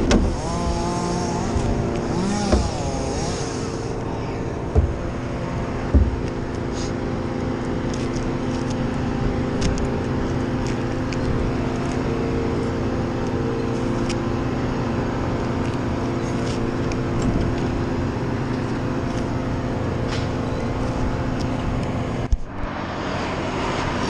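An engine running steadily at constant speed. There are a few short knocks in the first several seconds, and the sound breaks off briefly near the end.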